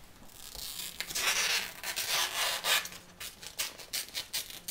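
A large fresh banana leaf rustling and rubbing as it is handled, then a quick series of short crisp snips and crackles as scissors cut into the leaf.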